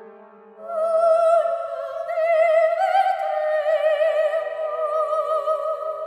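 Background music: a high operatic voice holding long notes with wide vibrato. It comes in about half a second in, over the fading tail of a low chord, and steps up in pitch partway through.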